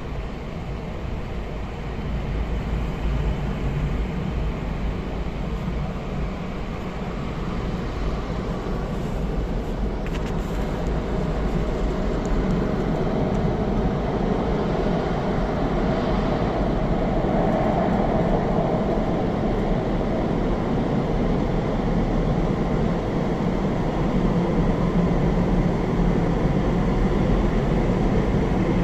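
Automatic car wash heard from inside the car: rotating wash brushes scrubbing over the wet windscreen and bodywork, a steady, even noise that grows a little louder in the second half.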